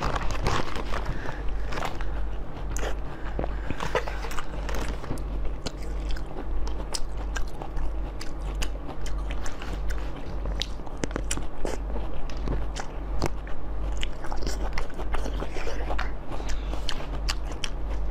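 Close-up mouth sounds of fresh dark sweet cherries being bitten and chewed: many short wet bites and clicks in an irregular run, over a steady low hum.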